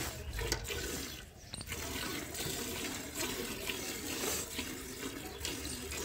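Hand-milking: streams of milk squirting from the teats into a steel bucket, a steady liquid hissing and splashing.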